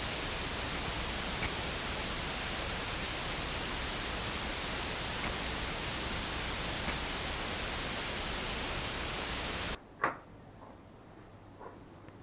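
Steady loud static hiss in place of real sound: the audio track of an SJCAM SJ7 Star action camera whose microphone recording is faulty. It cuts off suddenly near the end, leaving faint room sound with a single click.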